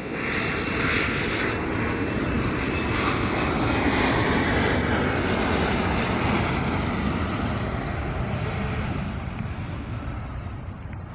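Jet engine noise from an Embraer ERJ-145's two rear-mounted Rolls-Royce AE 3007 turbofans as the regional jet comes in to land. The roar swells quickly, is loudest about four to six seconds in, then slowly fades as the aircraft goes past.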